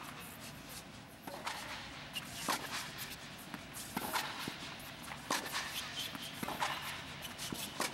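Tennis rally: tennis balls being struck by rackets and bouncing on the court, a series of sharp pops about one every second or so, with shoes scuffing on the court surface.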